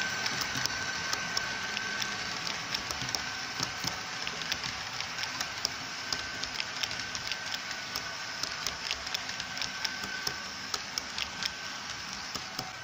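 Model railway passenger coaches rolling past on curved track: a steady rolling hiss with many light, irregular clicks of the wheels over the rail joints, which stop near the end as the last coach goes by.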